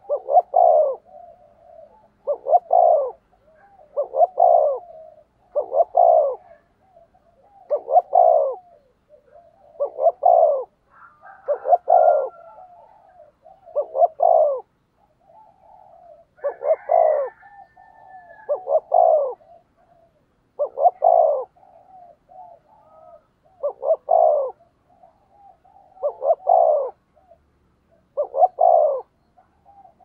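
Spotted dove cooing in short repeated phrases, about one every two seconds, with softer murmuring notes between them: the bowing challenge coo (gù) of a decoy bird.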